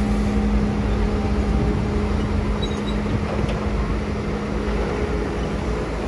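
Komatsu PC200 hydraulic excavator's diesel engine running steadily with a low rumble while the machine swings its arm. A steady hum from the machine fades about halfway through.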